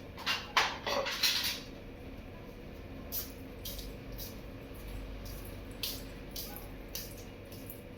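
Pet parrot giving a few short, harsh calls about half a second in, followed by scattered faint clicks and taps.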